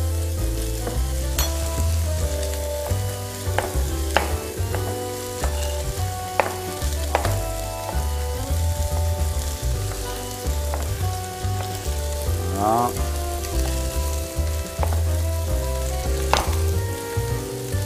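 Prawn shells sizzling steadily as they fry hard in a pan, being browned as the base of a bisque. A few sharp knife knocks on a cutting board come through as a tomato is roughly chopped.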